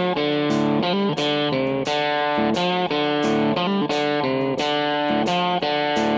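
Background music: a guitar-led instrumental, chords struck in a steady rhythm.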